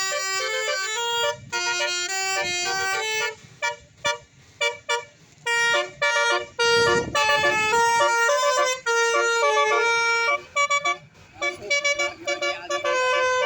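Tour bus's basuri telolet musical horn playing a tune: a run of held horn notes stepping up and down in pitch, broken by brief gaps between phrases.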